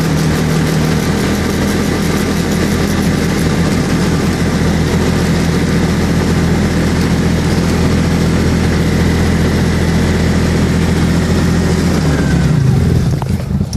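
Arctic Cat's engine running steadily under load while pushing snow with a front plow blade, over a steady hiss of wind and snow. About twelve seconds in, the engine note changes.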